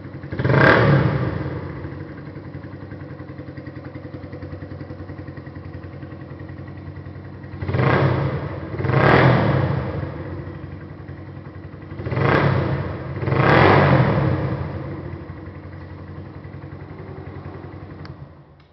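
Suzuki motorcycle with a Roncar aftermarket exhaust, idling and blipped five times: one rev right at the start, then two pairs of quick revs, each settling back to idle.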